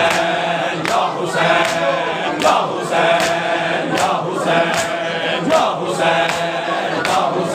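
A crowd of men chanting a Muharram lament (nauha) in unison while beating their chests with open hands (sina matam), the slaps landing together in a steady rhythm.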